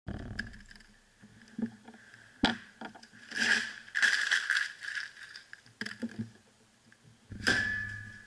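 Sheets of paper being crumpled into balls, crinkling in several bursts, with a sharp knock about two and a half seconds in.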